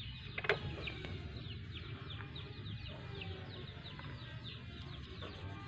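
Chickens peeping over and over in short, falling chirps, with one sharp click about half a second in.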